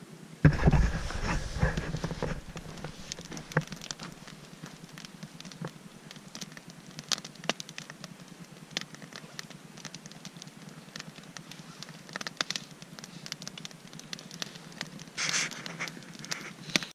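Wood campfire crackling and popping in a steel fire-pit ring, irregular sharp snaps over a low hiss. A loud low rumble in the first couple of seconds and a brief hiss near the end.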